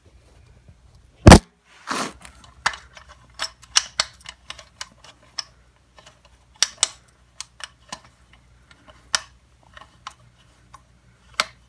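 Irregular metallic clicks and taps as a hand tool and bolt are worked against an aluminium skid plate, with one sharp, loud knock about a second in.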